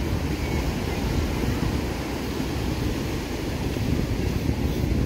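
Wind noise on the microphone, a low uneven rumble, over the steady wash of breaking surf on a sandy beach.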